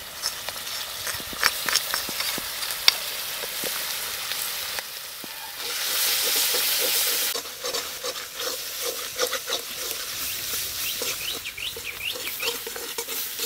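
Spice paste sizzling as it goes into hot mustard oil with fried onion and garlic in a metal karai, while a spatula stirs and scrapes it, knocking sharply against the pan a couple of times. The sizzle swells louder for about a second and a half around six seconds in.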